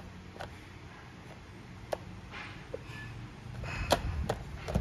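Handling noise of a Vivo V23e smartphone being set into the tray of its box: a few light, separate clicks and taps, then a quick run of louder knocks and rustling near the end.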